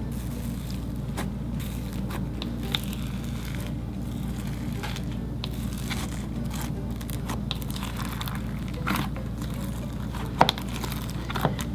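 Fluffy store-bought slime with bubbles on its surface being squished and pressed for ASMR, giving irregular small crackles and pops.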